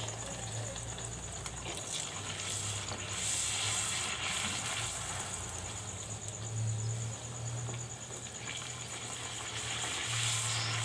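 Semolina golgappa puris deep-frying in hot oil: a steady sizzle and bubbling with scattered crackles, over a low steady hum.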